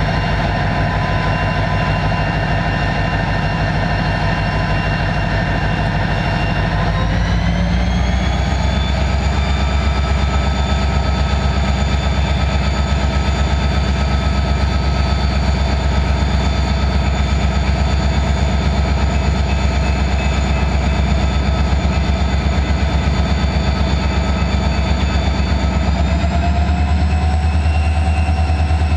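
Diesel-electric freight locomotive HLCX 6337 passing close by under power, its engine running with a steady low pulse and a high whine. The engine note and whine rise in pitch about seven seconds in as it throttles up, and rise again slightly near the end.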